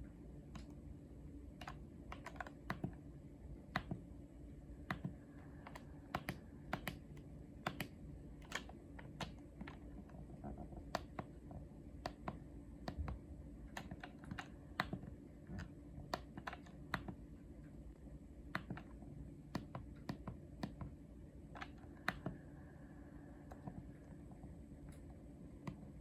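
Buttons on a Yanmar air conditioner's wired remote control being pressed again and again, a series of short, irregular clicks, over a low steady hum.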